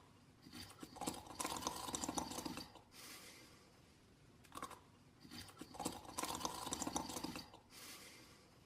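Animated character snoring in sleep: two snores about five seconds apart, each a long raspy inhale followed by a short breathy exhale.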